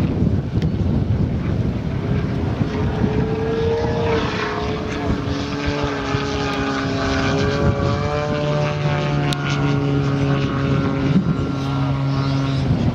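55%-scale Yak 54 model aircraft in aerobatic flight, its hand-built 500cc flat-four engine and propeller running steadily at high power. The pitch rises a little about four seconds in and then slowly wavers as the plane manoeuvres and climbs.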